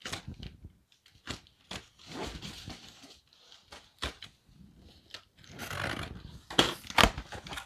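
Packaging being handled and opened by hand: cardboard and plastic rustling and tearing among a run of small clicks and knocks, with two sharp knocks near the end.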